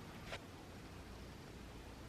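Quiet room tone: a faint steady hiss, with one short soft click about a third of a second in.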